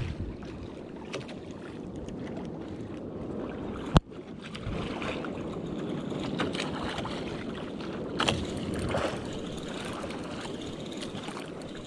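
Steady noise of sea water and wind, with a sharp knock about four seconds in and a smaller one about eight seconds in.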